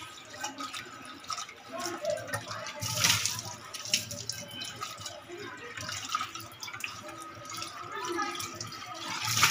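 Hands scrubbing a white marble-coated non-stick fry pan in a stainless-steel sink, with water sloshing and splashing, a loud splash about three seconds in, and tap water running into the pan near the end.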